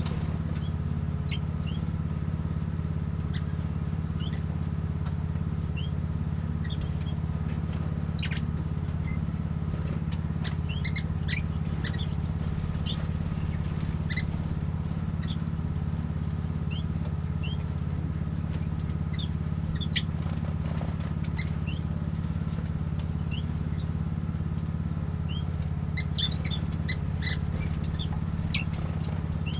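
Small aviary birds (finches, waxbills and Bourke parrots) chirping and calling in short high notes, scattered at first and busier near the end. Under them runs a steady low hum.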